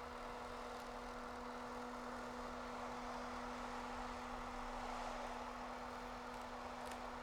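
Hand-held electric hair dryer running steadily, a fan rushing over a steady motor hum.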